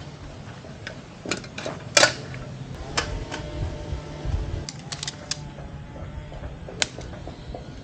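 Irregular clicks and knocks of a folding camp chair's frame being unfolded and set up, with the loudest snap about two seconds in.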